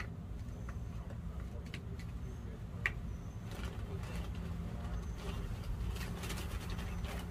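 Hands working potting soil around a seedling in a plastic pail: a few light clicks and soft rustling, over a steady low outdoor rumble.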